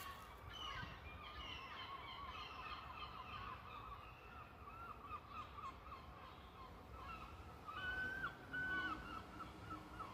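Syrphus hoverfly sitting on the camera, making a high, squeaky piping: a run of short chirps that waver in pitch, with a few longer, louder notes near the end.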